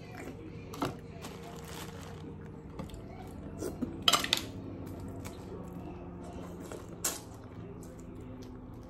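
Occasional clinks and clatter of dishes and cutlery while a meal is eaten: a sharp tap about a second in, a short cluster of clatters around four seconds, and another tap near seven seconds, over a faint steady background hum.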